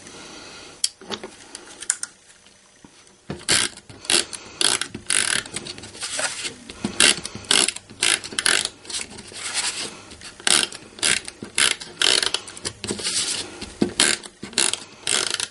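Handheld tape runner being pushed along the back of patterned paper in repeated short strokes, its gear mechanism clicking and ratcheting as the adhesive is laid down. The strokes start about three seconds in and come two or three a second.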